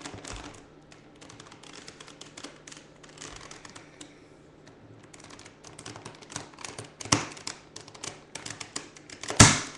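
Plastic Rubik's Cube pieces clicking and rattling as the last piece is shoved into place and a face is turned, a quick run of small clicks with a louder snap about seven seconds in and the loudest one just before the end.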